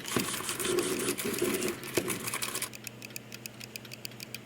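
Mechanical alarm clock's bell rattling rapidly, breaking off about two and a half seconds in and leaving the clock ticking quickly and evenly.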